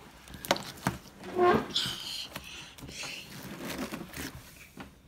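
Sticky slime being handled and pulled: scattered small clicks and squelchy sounds, with a brief high child's vocal sound about a second and a half in.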